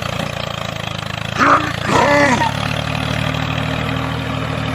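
Small tractor engine running steadily at an even speed. Two short voice-like calls come about one and a half and two seconds in.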